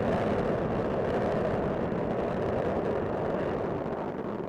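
Space Shuttle Discovery's solid rocket boosters and main engines firing during ascent: a steady, even rocket rumble.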